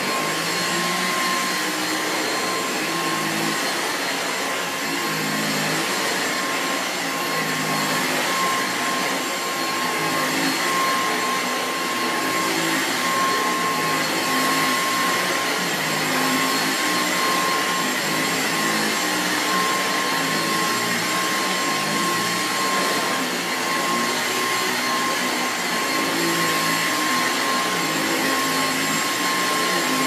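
Dyson V6 Absolute cordless stick vacuum running continuously with its motorised floor head on carpet: a steady rush of air with a high motor whine over it.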